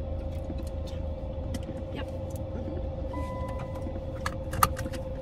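Steady low rumble inside a car cabin with a constant hum, scattered small clicks and taps, a short high beep a little over three seconds in, and one sharp click near the end.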